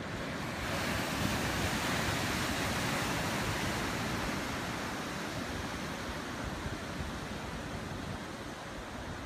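Ocean surf: a wave breaking about half a second in, its hiss swelling and then slowly dying away as the white water washes in, over a constant low rumble of the sea.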